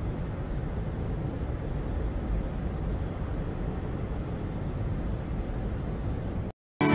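Steady low rumble of outdoor street background noise, with no distinct events, cutting off abruptly about six and a half seconds in.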